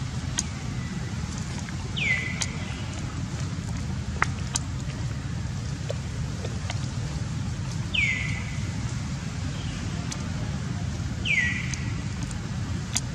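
Three short high calls, each sweeping down in pitch and settling briefly on a lower note, about two, eight and eleven seconds in, over a steady low rumble.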